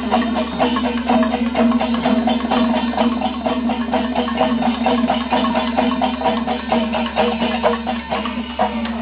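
Kerala temple drum ensemble playing fast, dense drumming over a steady held tone.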